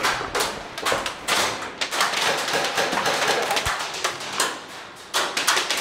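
A run of irregular sharp taps and thuds, roughly two a second, over a rustling hiss.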